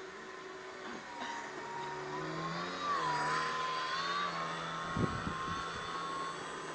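Radio-controlled Su-34 jet model's motor whining, wavering up and down in pitch and growing louder over the first few seconds. A brief knock comes about five seconds in.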